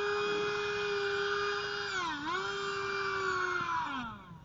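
Electric motor of a radio-controlled model speedboat whining at a steady high pitch. It dips briefly about two seconds in as the throttle is eased, climbs back, then winds down near the end.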